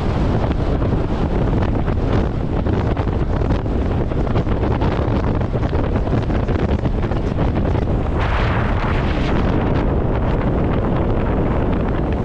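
Loud, steady wind buffeting a camera microphone mounted outside a vehicle travelling at road speed, with a deep rumble underneath. The hiss swells briefly about eight seconds in.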